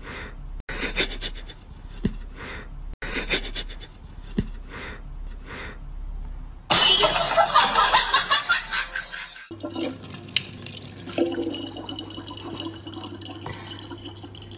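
A loud noisy burst lasting about three seconds, about halfway through. Then, from about nine and a half seconds in, a tap runs a thin steady stream of water into a plastic water bottle, over a steady low hum.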